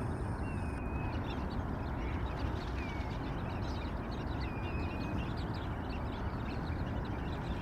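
A feeding flock of shorebirds calling: many short, high chips and twitters with a few thin whistled notes scattered through, over a steady low rush of wind noise.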